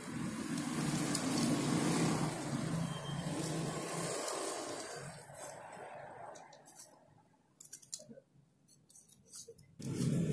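A utility knife cutting into soft foam, with light scrapes and short clicks. Under it runs a steady low motor hum that fades out about four seconds in and returns suddenly near the end.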